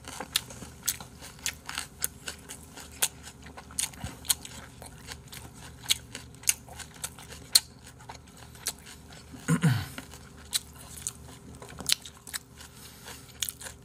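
Eating sounds close to the microphone: chopsticks clicking and tapping irregularly against plastic takeout containers and bowls, with chewing. About ten seconds in, a brief low sound falls in pitch.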